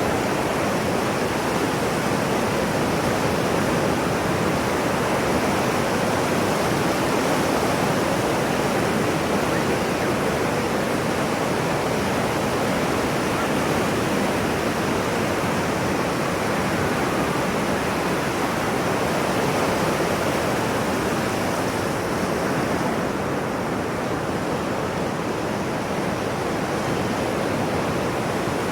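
Ocean waves as a continuous rushing sleep sound, even and steady with no distinct breaking swells; the highest part of the hiss thins a little past the middle.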